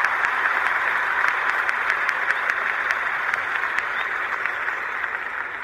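Crowd applause, a dense even clapping that fades out slowly toward the end.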